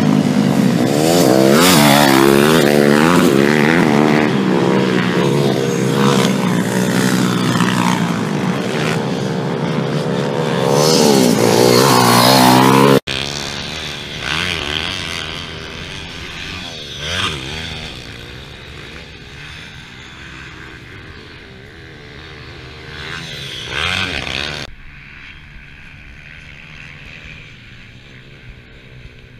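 Motocross bikes racing, several engines revving up and down close by. The sound drops abruptly about 13 seconds in, and the bikes are then heard farther off, quieter, with passing swells.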